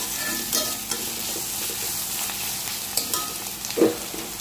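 Chopped onions sizzling in hot oil in a black iron kadai while being sautéed, a metal spatula scraping and tapping the pan now and then, with one louder knock near the end.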